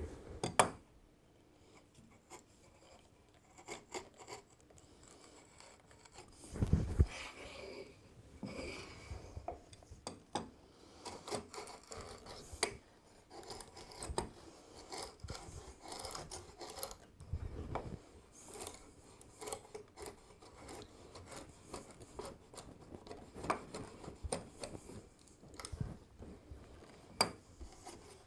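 Veritas router plane taking small passes across a wooden half-lap cheek: short, irregular scraping strokes of the blade shaving the wood, mixed with light clicks. A few louder knocks come through, the strongest about half a second in and about seven seconds in.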